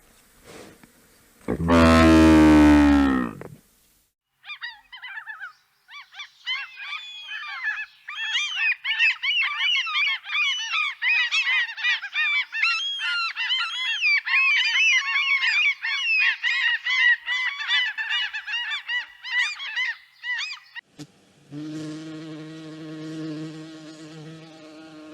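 A flock of birds honking in a dense, overlapping chorus of goose-like calls. It is preceded by one loud animal call that falls in pitch, and near the end it gives way to a steady buzzing drone.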